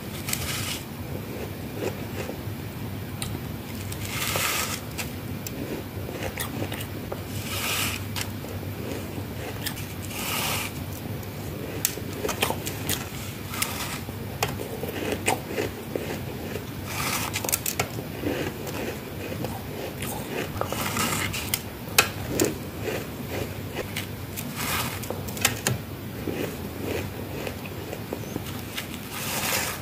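Close-miked bites into soft freezer frost: a crisp crunch every few seconds, about six in all, with small crackles and munching between them.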